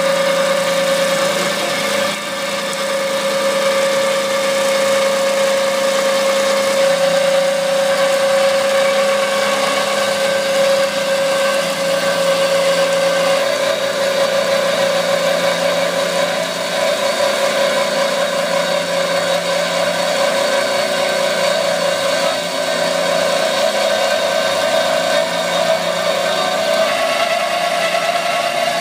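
JMT DCB-M 560 double-column band saw running with its blade cutting through 18-inch pipe. It is a steady machine noise with a strong high ringing tone that rises slightly near the end.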